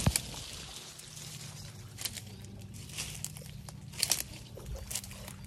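Scattered rustles and crackles of leaves and twigs brushing past, about one a second, with faint water sloshing and a steady low hum underneath.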